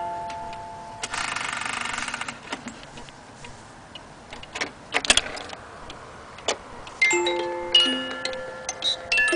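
Antique cuckoo clock mechanism: a tune of plucked music-box-like notes dies away, a brief whirring rattle of the works follows about a second in, then a few scattered clicks. The tune starts up again about seven seconds in.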